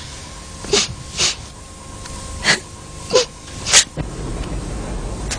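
A person makes five short, breathy vocal sounds, spread over about three seconds. About four seconds in, a low rumble begins.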